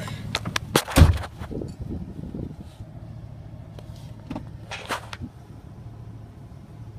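A Chevrolet 4.8 L Vortec V8 idling steadily through a muffler-delete exhaust, where the muffler has been cut out and replaced with straight pipe, making a low, even hum. A loud thump comes about a second in, and a few lighter clicks and knocks follow.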